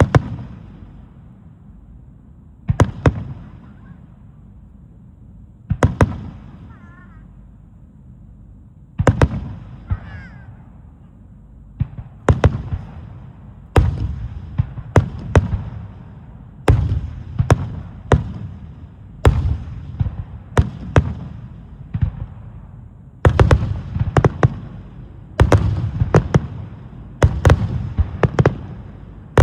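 Aerial firework shells bursting in a wide starmine barrage. Sharp booming bursts come about every three seconds at first, then faster and overlapping in the second half, each trailing off in a rumble.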